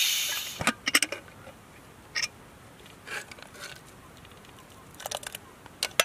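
Steam hissing out of an aluminium pressure cooker as its weight is lifted, fading out within the first second. Then come scattered short clicks and clinks as the lid is worked open and the metal pots are handled.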